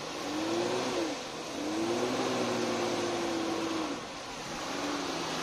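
Off-road SUV's engine revved while it pushes through deep mud: the engine note rises and falls three times, briefly about a second in, longest through the middle, and briefly near the end, over a steady rushing noise.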